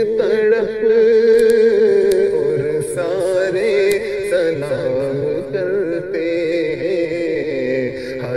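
A voice singing an Urdu devotional salam (naat) melody in long, wavering held notes.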